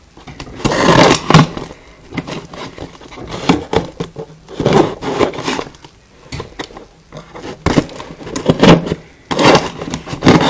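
Hands working at a cardboard shipping box to get it open: irregular scraping and rubbing of cardboard, in short uneven bursts with a few sharper scrapes.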